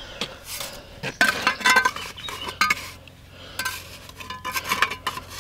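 Steel mason's trowel scraping mortar and tapping against concrete blocks, a string of scrapes and light metallic clinks with a short lull about three seconds in.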